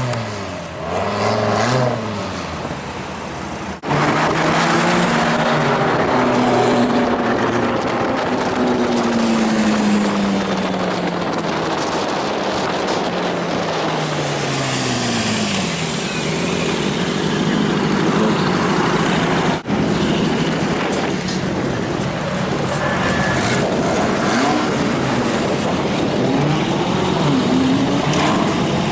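High-performance sports car engines revving and accelerating, one car after another, their pitch climbing and falling repeatedly. The sound cuts off abruptly twice, about 4 and 20 seconds in.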